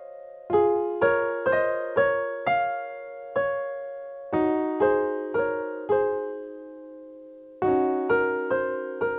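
Donner DDP-80 digital piano playing its acoustic piano sample: a slow, gentle passage of notes and chords in the middle register, struck about twice a second and each ringing out and fading, with a couple of longer held notes.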